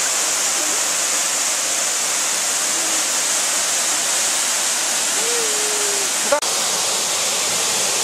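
Steady, even rush of a waterfall, with a single sharp click about six seconds in.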